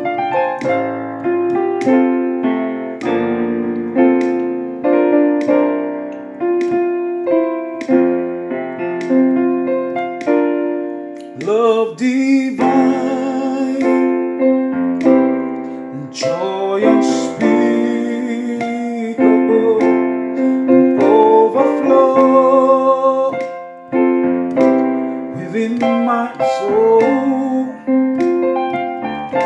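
Piano playing a slow gospel worship-song interlude, chord after chord. A wavering, wordless melody line comes in over it twice in the middle.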